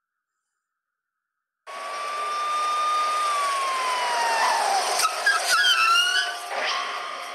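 A jeep driving in: steady engine and road noise that starts abruptly after a silent first second and a half, with a tone that slowly falls in pitch. A little past the middle come a few sharp clicks and short wavering tones.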